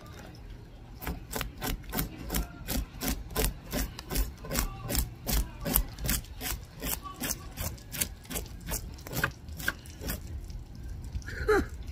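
Scales being scraped off a large croaker fish in quick, even strokes, about three a second.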